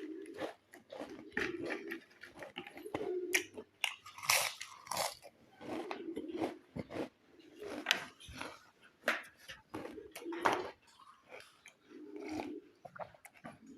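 Crisp packaged snack chips being bitten and chewed close to the microphone: irregular sharp crunches, several a second, with chewing between them.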